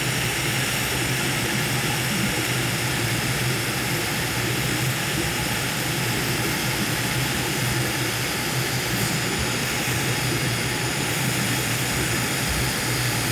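TIG welding arc burning along an oily steel plate, a steady hiss and buzz with a constant low hum. The cutting-oil contamination makes the puddle fight and the arc flutter.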